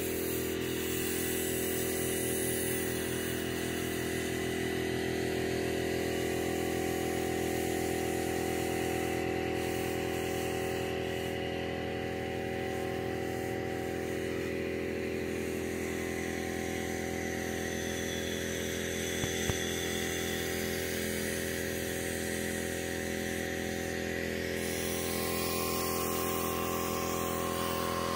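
Pancake air compressor running steadily, feeding an air spray gun that hisses as it sprays paint onto steel pipe fence. One short knock about two-thirds of the way through.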